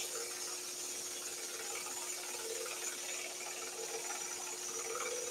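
Axminster scroll saw running and cutting through a wooden board as it is fed slowly into a curve: a steady, even buzz with hiss.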